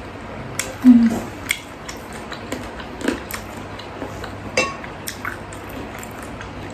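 Close-miked eating sounds: chewing and wet mouth noises, and a metal spoon clinking and scraping against a ceramic bowl as bakso soup is scooped up, heard as scattered sharp clicks, the loudest about halfway through.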